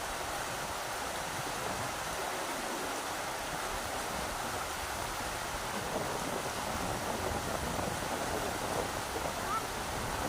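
Rushing river water: a steady, dense rush of flowing water.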